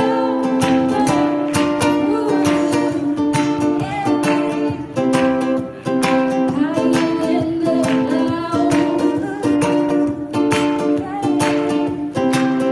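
Duet singing accompanied by a strummed acoustic string instrument, with held, gliding sung notes over a steady strumming rhythm.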